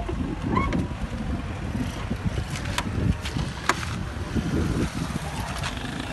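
Single-cylinder two-stroke engine of a 1970 Vespa Super running after its carburettor was cleaned. There are two sharp clicks about a second apart near the middle.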